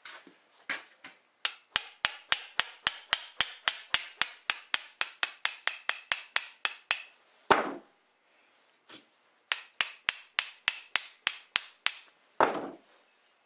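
Ball-peen hammer tapping a half-inch EMT steel conduit sleeve onto a snowmobile tie rod shaft, a friction fit that stiffens the rod against bending. Two runs of quick, light metallic taps, about four or five a second, each followed by a single duller thud.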